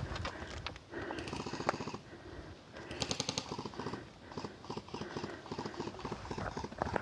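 Footsteps and rattling gear of a person moving on foot: quick runs of short knocks and clicks, with no voices.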